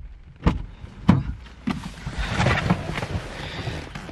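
Rain pattering on a parked car, heard from inside the cabin, with a few sharp knocks about half a second apart in the first two seconds.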